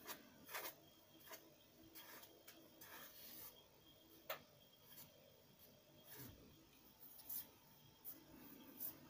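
Near silence with faint, scattered rustles and light clicks from a hand stroking a cat's fur as the cat lies in a cardboard box.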